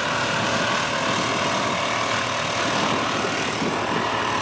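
An engine running steadily, with no change in speed.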